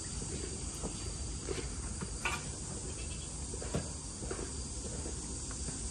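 Steady high-pitched drone of insects, with a few faint, scattered clicks and knocks.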